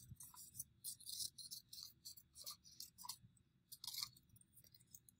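Scissors snipping through construction paper: a string of short, faint, crisp cuts, with paper crinkling as the pieces are handled.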